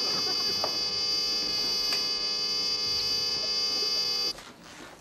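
A steady electric buzzer sounding, then cutting off suddenly about four seconds in.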